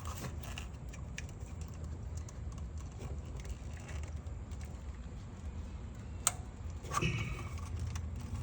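Scattered light clicks and taps of tools and parts being handled during repair work, over a low steady hum, with one sharp click about six seconds in.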